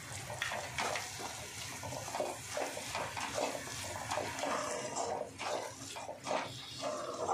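A flat spatula stirring and scraping thick masala paste as it fries in an iron kadhai: a run of irregular wet swishing strokes, a few a second.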